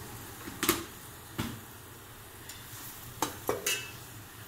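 Onion and tomato masala sizzling in a large aluminium pot as a metal ladle stirs it, knocking and scraping against the pot about five times. The spices are being fried in the oil before water is added for the gravy.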